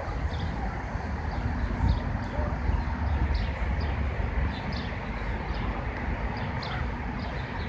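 Steady low outdoor rumble, with a few faint short high chirps or ticks scattered through it.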